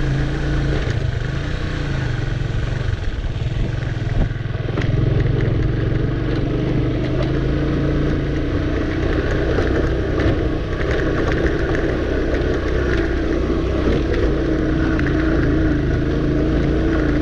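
Motorcycle engine running steadily as the bike rides along a rough dirt road, with a few knocks and rattles now and then. The engine gets a little louder about four seconds in.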